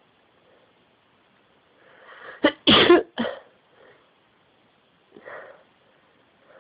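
A woman sneezes once, about two and a half seconds in: a short breathy build-up, then a sharp explosive burst, set off by tickling the inside of her nose with a cotton swab. A fainter breath follows a couple of seconds later.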